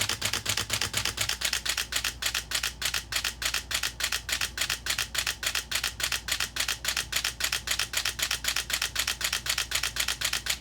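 Nikon D700 DSLR's refurbished shutter and mirror firing in a continuous-high burst: a steady run of crisp clicks, about five a second, that stops at the end.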